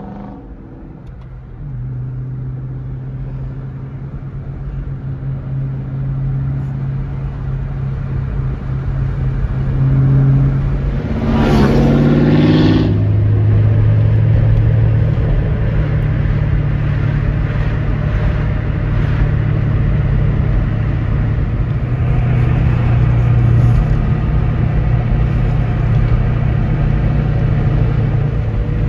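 Ford Mustang Mach 1 4.6-litre V8 engines running on the road, heard from inside one car's cabin. The engine note builds steadily over the first ten seconds, swells in a short rev about eleven seconds in, then holds as a loud, steady drone.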